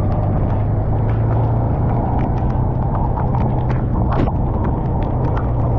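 Vehicle engine running steadily while driving, a continuous low drone mixed with wind and road noise, with scattered sharp ticks throughout.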